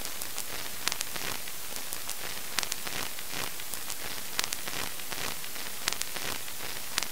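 Steady static hiss with irregular crackles and pops, the surface noise of an old recording.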